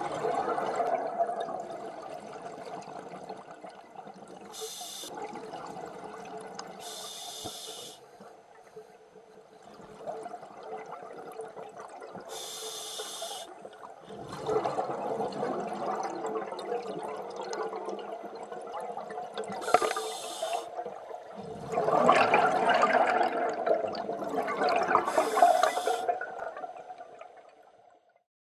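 Scuba diver breathing through a regulator underwater, heard close to the camera: a short hiss on each inhalation, then a burst of gurgling exhaust bubbles on each exhalation, a handful of breaths a few seconds apart. The sound fades out near the end.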